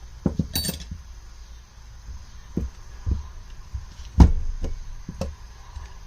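Mikuni VM22 carburetor rack and hand tools being handled: a series of irregular knocks and clicks, with a bright metallic clink near the start and the loudest knock about four seconds in.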